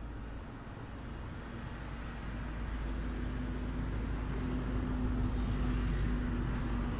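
A motor vehicle's engine hum, steady in pitch and getting louder from about two seconds in, over a low rumble.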